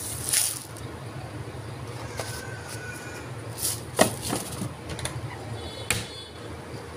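Granulated sugar pouring into a steel pot of milk, a short hiss in the first half-second. A few sharp clicks and knocks follow around four and six seconds in, over a steady low hum.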